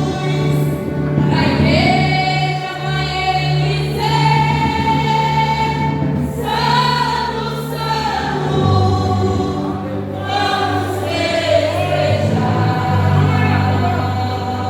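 Women's choir singing a gospel hymn in long held notes, over a steady low accompaniment.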